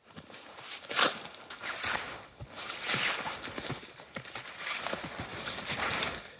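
Footsteps crunching through snow, about one step a second.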